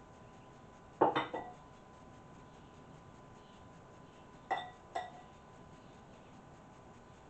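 A metal spoon clinking against a glass mixing bowl: a quick cluster of ringing knocks about a second in, the loudest, then two lighter clinks around four and a half and five seconds.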